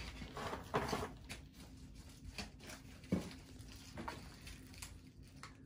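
Rustling and light knocks of packaging and small objects being handled and moved, with two louder knocks about one second and about three seconds in.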